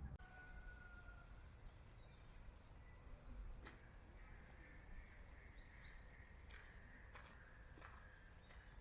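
Faint outdoor ambience with a small bird repeating a short, high-pitched phrase of a few quick notes three times, about every two and a half seconds.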